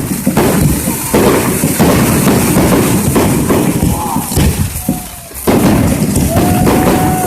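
Fireworks going off in quick succession: dense crackling with thuds and booms, a few short whistle-like tones, and a brief lull a little after five seconds before the crackling resumes.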